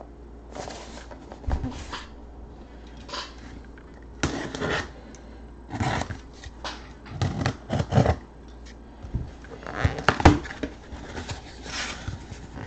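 Hands handling and turning a sealed corrugated cardboard case: irregular rustling and scraping of skin and cardboard, with a couple of dull knocks as the case bumps or is set on the table.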